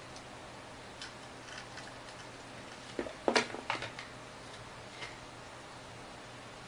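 Light plastic clicks and taps as a toy RC helicopter's parts are handled. There is a quick cluster of louder knocks about three seconds in and a single click near five seconds.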